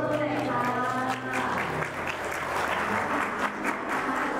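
A crowd of guests clapping, with instrumental music playing underneath. The music's notes are clearest in the first second or two, after which the clapping dominates.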